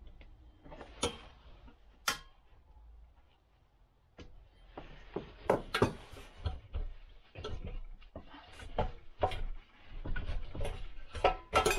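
A wrench clicking on the last exhaust bolt of a 1969 Ski-Doo Olympic snowmobile engine, a sharp click about a second in and another about two seconds in. From about four and a half seconds in comes a dense run of metal knocks and scraping as the exhaust is worked loose from the engine.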